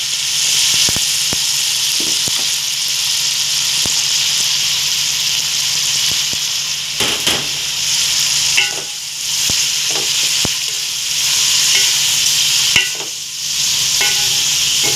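Chicken and raw shrimp sizzling as they fry in a metal pot, a steady hiss. A wooden spatula scrapes and knocks against the pot as the mix is stirred, and the sizzle dips briefly a couple of times.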